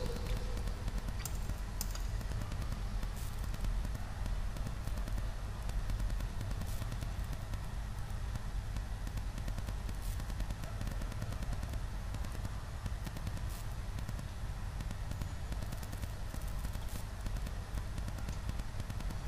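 Steady background hiss with a low hum: the room tone picked up by a desktop recording microphone, with a couple of faint clicks about a second in.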